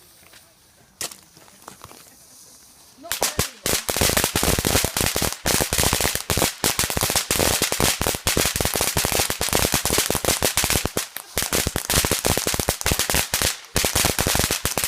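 A ground firework going off as a rapid, continuous string of sharp bangs and crackles, many a second. It starts suddenly about three seconds in, after the fuse has been lit.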